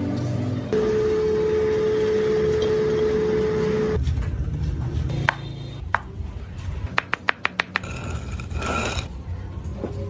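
A steady hum with a hiss for the first few seconds, which stops abruptly, then a run of sharp metallic taps and clinks, several with a short ringing tone.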